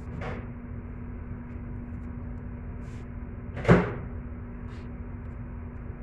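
A single sharp knock on the kitchen counter about two-thirds of the way in, as the stuffed capsicum is set down close to the microphone, with a lighter click near the start, over a steady low hum.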